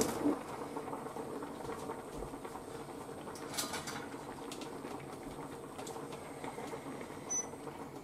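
Miso soup with tofu and wakame simmering in a stainless steel saucepan: a soft, steady bubbling and crackle. There is a sharp clink at the very start as the lid comes off.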